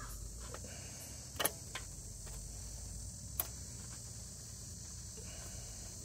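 A few sharp, small clicks of hardware as an accelerator cable end is worked onto the throttle linkage pin with a screwdriver, the loudest about a second and a half in. Under them, a steady chorus of crickets.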